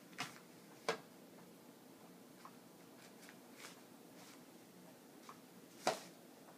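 Scattered sharp ticks and taps from a motorized Cat's Meow toy, its wand darting under the nylon cover while cats paw and pounce at it. The three loudest taps come just after the start, about a second in and near the end. A faint steady low hum lies underneath.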